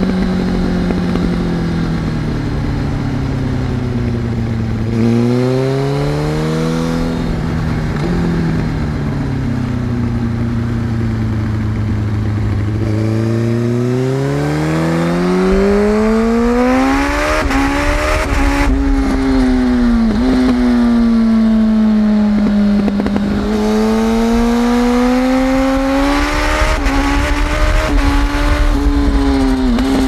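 Yamaha R1 sport bike's inline-four engine through a Shark aftermarket exhaust, heard from the rider's seat while riding. The engine note climbs as it accelerates and falls back several times, with one sharp drop in pitch partway through.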